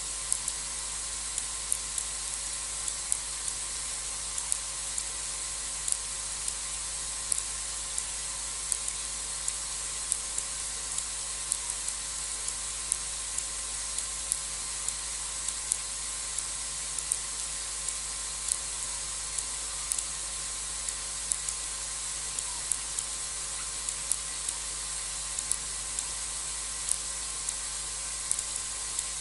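Steady high-pitched hiss of a night insect chorus, with frequent sharp irregular clicks at about two or three a second.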